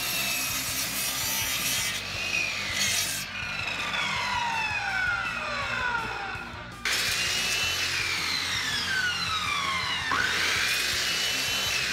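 Miter saw cutting pressure-treated lumber. The motor's whine falls in pitch as the blade works through the wood. The saw starts again suddenly about seven seconds in for another cut.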